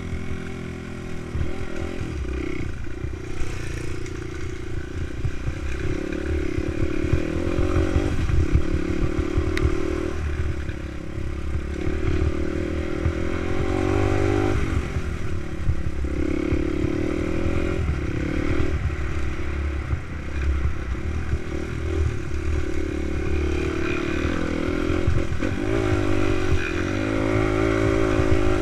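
Honda dirt bike engine under way, revving up and dropping back again and again as the rider accelerates and shifts along the trail, with clatter and scraping from the bike over rough ground.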